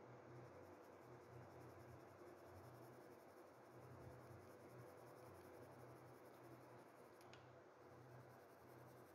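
Faint scratching of a pencil drawing on paper, over a low steady room hum.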